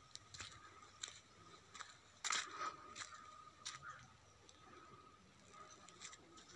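Footsteps crunching on dry red soil and fallen leaves, an irregular step every half second or so, the loudest a little after two seconds in and fainter through the second half, over a faint steady high tone.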